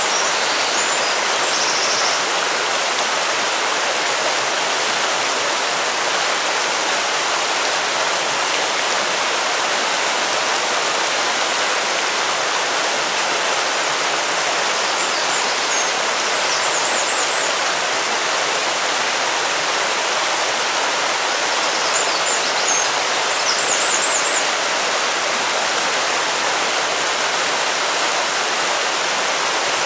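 River water flowing in a steady, even rush. A few faint high chirps come through near the start, in the middle and near the end.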